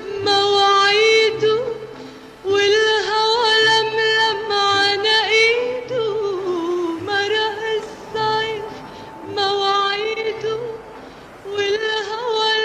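Instrumental interlude of a Lebanese Arabic song: a melody line plays short repeated phrases over a steady low bass pattern, between sung verses.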